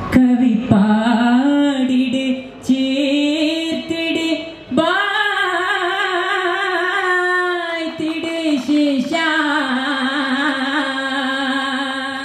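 Group of men singing a vattappattu, the Mappila wedding song, through stage microphones, in drawn-out phrases with long held, gliding notes and short breaks between them.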